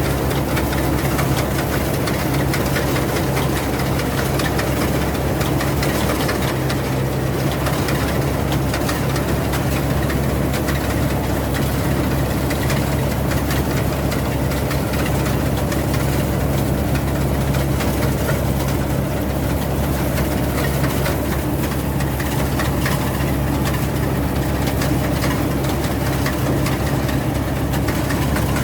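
Rice combine harvester's engine running steadily with a constant low hum.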